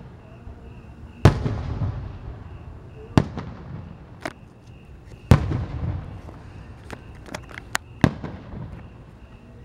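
Aerial firework shells bursting: four loud booms about two seconds apart, each trailing off in an echo, with a quick run of smaller sharp cracks between the third and fourth.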